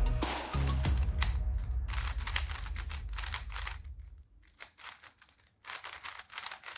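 A Rubik's cube being turned quickly by hand: rapid plastic clicks of the layers snapping round, thinning to a few scattered clicks after about four seconds.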